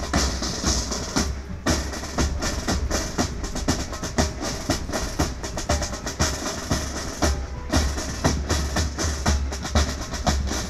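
Military band drums playing a fast, steady beat, with deep bass-drum strokes under rapid side-drum strokes.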